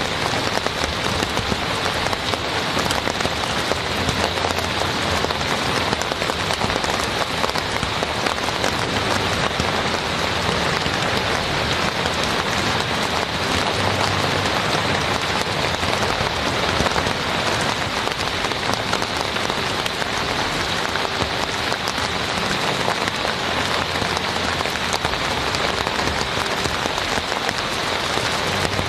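Steady rain falling on a tent and the wet ground around it: a dense, even patter of drops.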